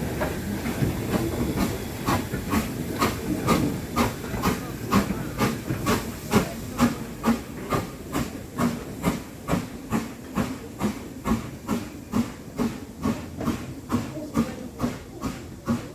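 Steam locomotive working, its exhaust chuffing in an even beat about three times a second over a hiss of steam. The beats build up over the first couple of seconds and fade slightly toward the end.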